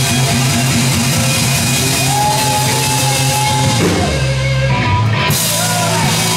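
Live rock band playing loud: electric guitars, bass guitar and drum kit together. About two seconds in, a long high note is held for roughly two seconds, rising in pitch as it starts.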